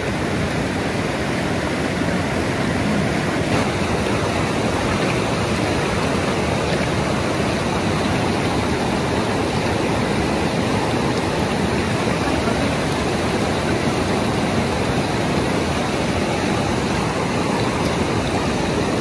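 Steady rushing of a river's flowing water, an even noise that does not change.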